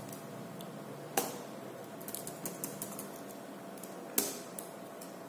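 Computer keyboard keystrokes: a sharp key press about a second in, a quick run of lighter clicks between about two and three seconds, and another sharp key press about four seconds in, over a faint steady hum.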